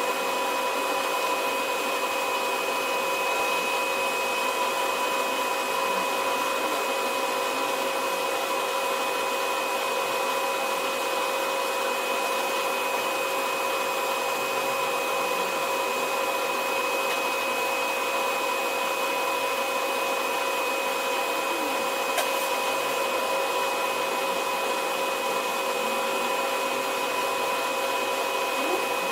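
Metal-spray (thermal spray) gun running steadily, a constant hiss with a few fixed hums over it, as sprayed metal builds up the worn bearing seat on a screw compressor's male rotor shaft.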